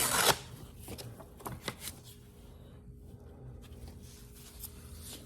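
Sheets of sandpaper being handled and sorted: a brief loud rustle at the start, then light rustling and scattered small clicks.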